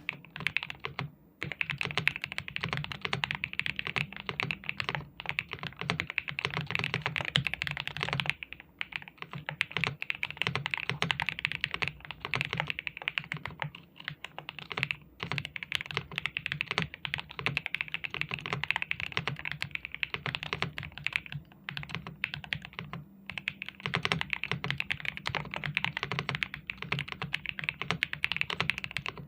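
Epomaker DynaTab 75X gasket-mounted mechanical keyboard with a full foam stack and PC plate, typed on quickly and continuously with a muted, deep thock. There are a few short pauses in the typing.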